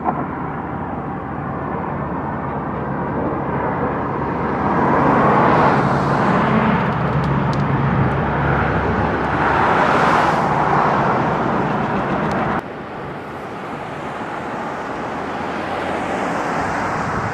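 Road traffic: a steady rush of vehicle noise that swells twice as vehicles pass, then drops suddenly about two-thirds of the way through.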